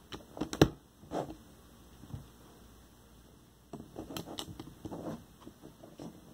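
Plastic Lego bricks clicking and tapping as they are pressed onto a small Lego boat and handled on a tabletop: a cluster of sharp clicks in the first second, a couple of single clicks, then a quicker run of clicks and rattles from about four seconds in.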